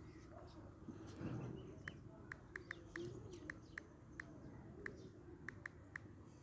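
Faint, short key-tap clicks from a smartphone's on-screen keyboard as a password is typed, about a dozen at an uneven pace, over a low hiss.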